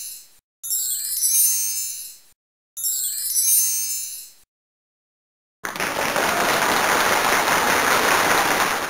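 Two bright, sparkly chime sound effects of a game-show answer reveal, each lasting about a second and a half. After about a second of silence comes roughly three seconds of canned applause for the top answer, which cuts off sharply near the end.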